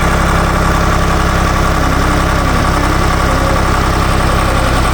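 Ditch Witch trencher-backhoe's air-cooled three-cylinder Deutz diesel running steadily.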